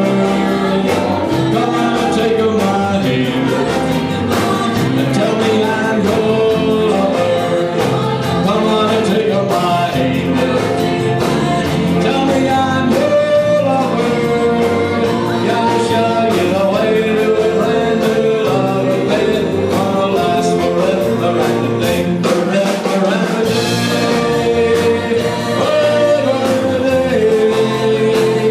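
Rock and roll band music with singing.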